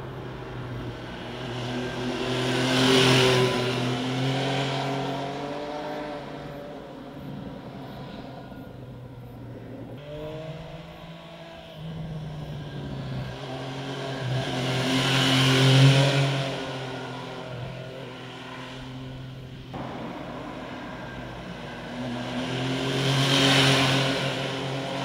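2014 MV Agusta Rivale 800's inline three-cylinder engine as the motorcycle rides past three times, its revs rising and falling through the bends. Each pass swells to a peak and fades away, the loudest about two-thirds of the way in.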